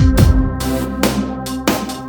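Electronic background music with a heavy drum beat and sustained synth tones.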